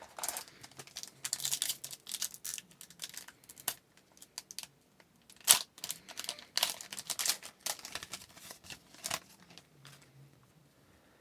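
A hockey card pack's wrapper being torn open and crinkled, with the cards inside being handled: a run of irregular crackles and rustles that thins out near the end.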